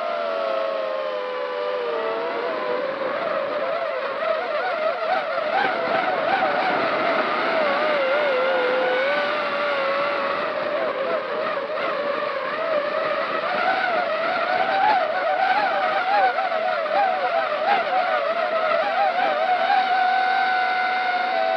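A drone's motors and propellers whining, picked up by its onboard camera. The pitch wavers up and down as the throttle shifts, dropping in the first couple of seconds and climbing again a little past the middle.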